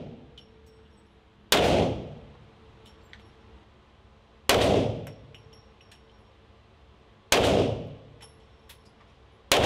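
Gold Desert Eagle .50-calibre pistol fired four times, one shot every two to three seconds. Each shot is a sharp, very loud crack with a long echoing tail off the walls of an indoor range, with faint ticks between shots.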